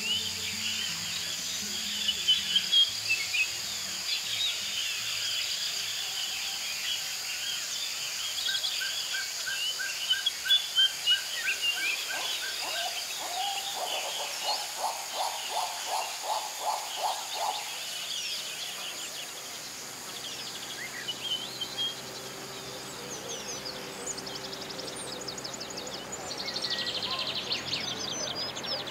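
Recorded outdoor nature ambience: many birds chirping and trilling over a steady high-pitched drone. About halfway through, a run of about a dozen evenly spaced lower calls repeats for roughly five seconds.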